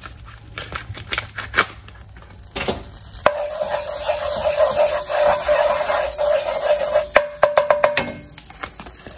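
Wooden spoon stirring foaming melted butter in a hot metal frying pan: light clicks and scrapes of wood on the pan. About three seconds in, the butter starts sizzling loudly as it is stirred, and it dies down again after about five seconds.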